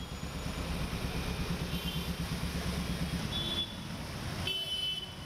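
Motor traffic driving through a flooded street: motorcycle and heavy-vehicle engines running with a low rumble that drops away about three and a half seconds in, and short horn toots, the clearest near the end.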